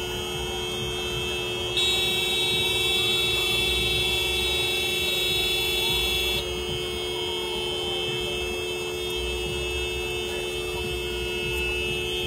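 Car horn held down continuously, two steady tones sounding together. A second, louder horn joins from about two seconds in until about six seconds.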